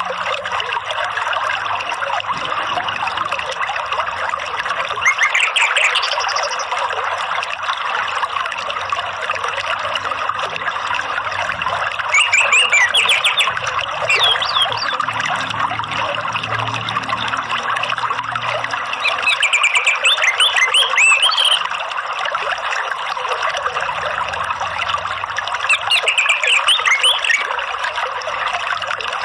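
Steady trickling, running water. Over it a songbird breaks in four times with short bursts of quick, high, sliding notes, about every six to seven seconds.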